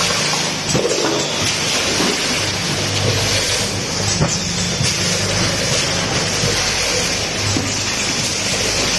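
Vertical form-fill-seal bagging machine with multihead weigher running: a steady mechanical hum with hiss and a few light clicks.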